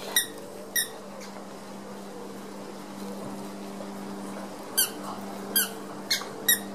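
Dog biting a squeaky toy ball, making short, sharp squeaks: two in the first second, then four in quick succession from about five seconds in.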